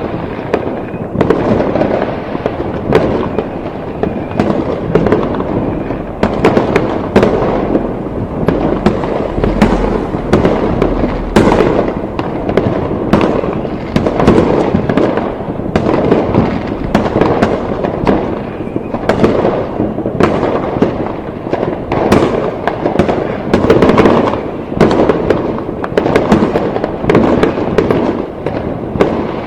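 Fireworks going off continuously: a dense barrage of overlapping bangs and crackles, many per second, with no pause.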